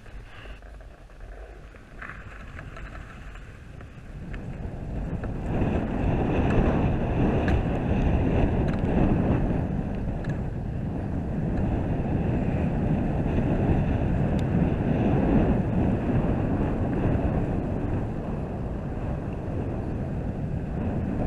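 Skis hissing and scraping over packed snow while skiing downhill, with wind buffeting the camera microphone; it gets louder about five seconds in and stays loud.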